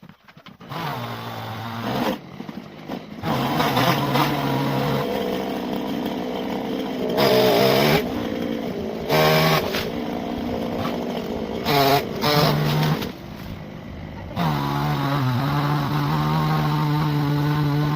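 Chainsaw running and cutting into a tree, its engine note rising to full revs and dropping back several times; it starts up under a second in.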